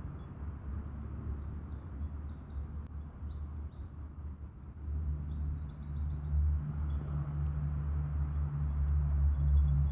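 Small songbirds chirping in quick, high-pitched phrases, over a steady low rumble that grows louder about halfway through.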